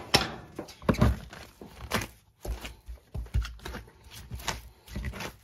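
Bench scraper working salted butter on a cutting board covered in plastic wrap: a string of irregular scrapes and soft knocks against the board, about two a second.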